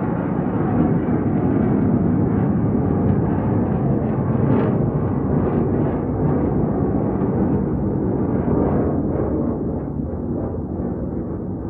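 Military aircraft flying over: a deep, steady engine rumble that swells and then eases off near the end.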